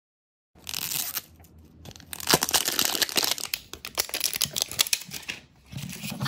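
Crinkling and tearing of a toy ball's printed plastic-foil wrapper as it is peeled off by hand, starting about half a second in. After a short pause near the end there is more rustling and handling of the plastic ball.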